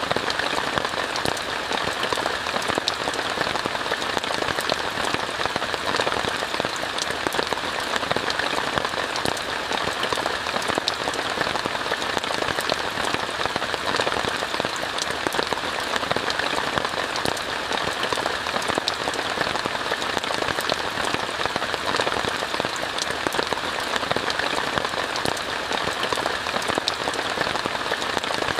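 Steady rain falling on a tent, heard from inside, a continuous hiss dotted with many small drop ticks.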